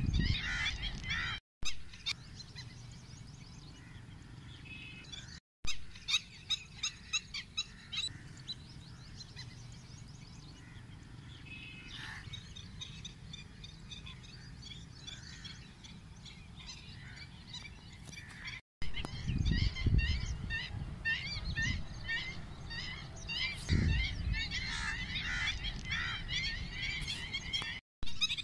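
A flock of small birds chirping in quick, repeated calls, in several stretches that cut off abruptly, over a low rumble that swells about two-thirds of the way through.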